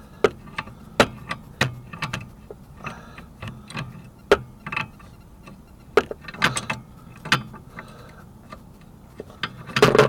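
Irregular metallic clicks and knocks of hand tools working on a car's tie rod end, with a louder clatter near the end.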